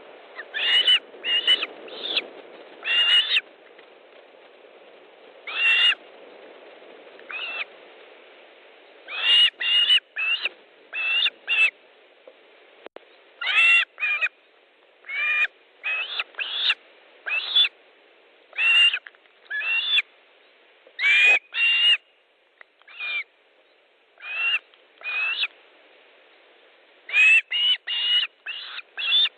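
Osprey calling: a long series of short, rising, whistled notes in quick runs of two to four, with pauses of a second or two between runs, over a faint steady hiss.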